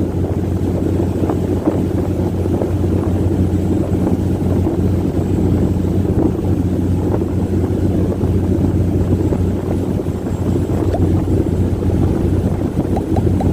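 Diesel engine of an Amazon river boat (lancha) running steadily at speed, a deep constant drone mixed with the rush of water and wind.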